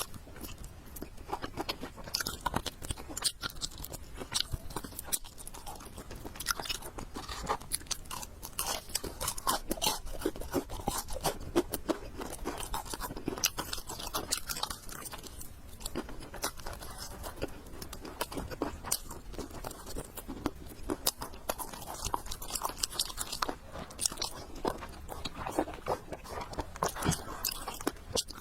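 Close-miked chewing of food, with a steady run of small crunchy clicks and wet mouth smacks.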